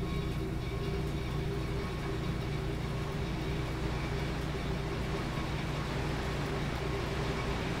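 Steady low rumble of a waterfall's rushing whitewater, with faint steady tones above it.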